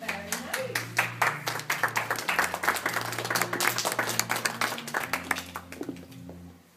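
Audience applauding, many hands clapping, dying away near the end, with music playing quietly underneath.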